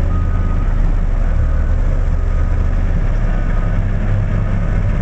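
Large wheel loader's diesel engine running with a steady low drone, its backup alarm beeping repeatedly.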